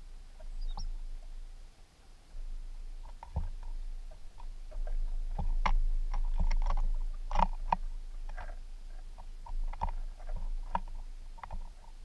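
Birds pecking and cracking seed on a wooden platform feeder: irregular small taps and clicks, busiest in the middle stretch.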